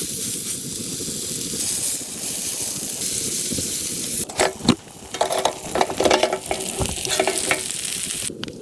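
Food sizzling as it fries in a pan, a steady hiss. After about four seconds a utensil stirs and scrapes in the pan, with irregular metallic clinks.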